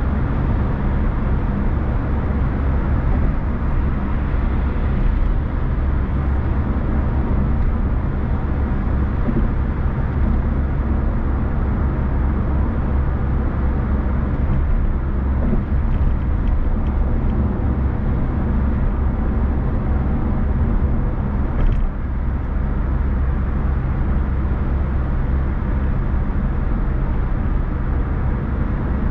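Steady low rumble of a car being driven on the road: tyre and engine noise. A single short knock comes about two-thirds of the way through.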